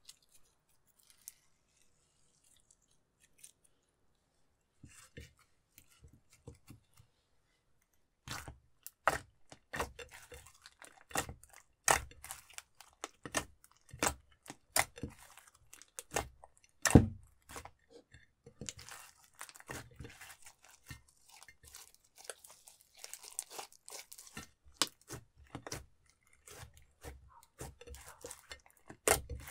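Clear slime with eyeshadow mixed in being kneaded and squeezed by hand: sticky crackling, popping and squelching. Almost quiet at first, then a dense run of pops starts about eight seconds in, loudest around the middle.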